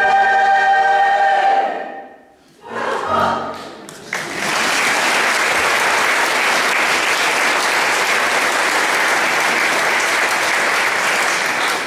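Women's choir holding its final chord, which dies away in the church's echo about two seconds in. A brief last chord sounds a second later. Then the audience breaks into steady applause about four seconds in.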